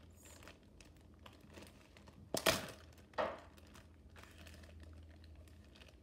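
Crinkling and handling noises made close to the microphone: faint clicks and crackles throughout, with two louder crinkling rustles about two and a half and three seconds in.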